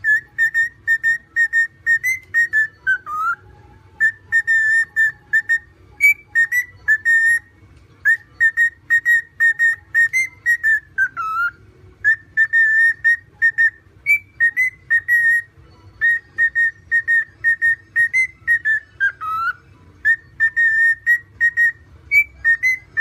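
Cockatiel whistling a repeated tune: quick runs of short notes on nearly one pitch in phrases a second or two long with brief pauses between, some phrases ending in a falling swoop.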